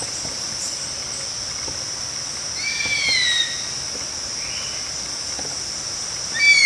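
Steady, high insect drone of crickets or cicadas. Two falling screeches come over it, about three seconds in and again near the end, the second louder.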